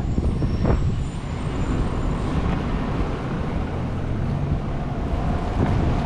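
Wind buffeting a chest-mounted GoPro's microphone while cycling, a steady rough low rumble.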